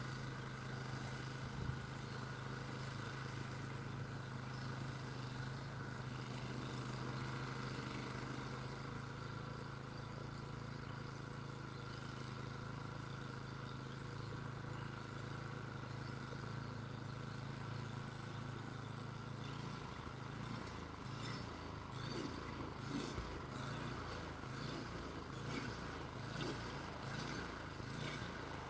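Engine of a snow-clearing machine running steadily with an even hum. About two-thirds of the way through, the sound turns uneven and choppy, with rapid irregular knocks and rattles, as the machine's load or motion changes.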